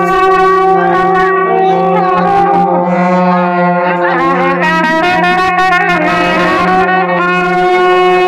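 Indian street brass band playing a loud melody on trumpets and saxophone, over a low note held steady throughout.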